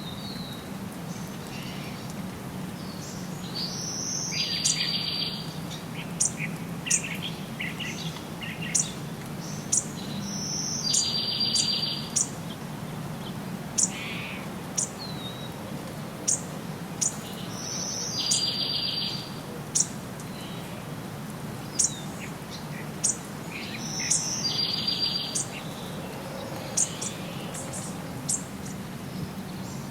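Songbirds singing outdoors: one bird repeats the same short trilled song four times, about every six to seven seconds, while others give scattered short high chirps. Under them runs a steady low background hum.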